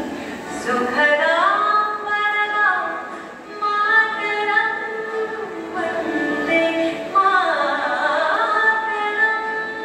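Music: a song with a woman's voice singing a melody in long held notes, accompanying a dance.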